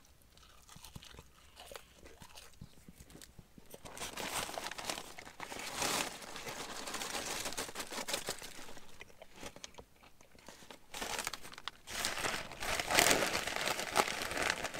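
White paper wrapping crinkling and rustling as a wrapped parcel of takeaway chips is handled and opened, in irregular bursts starting about four seconds in, with a short lull near ten seconds.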